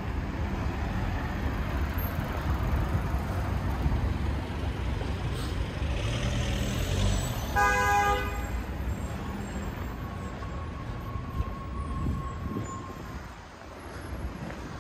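Steady rumble of city street traffic, with a short car-horn toot about halfway through.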